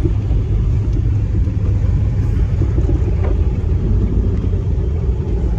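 Steady low rumble of a 1998 Honda CR-V's four-cylinder engine and its tyres on snow-covered road, heard from inside the cabin while driving slowly.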